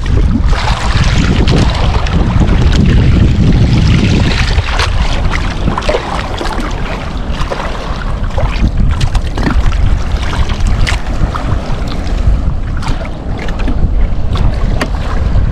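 Wind buffeting the microphone over a choppy sea, with a steady low rumble and waves slapping and splashing irregularly against a small boat's hull.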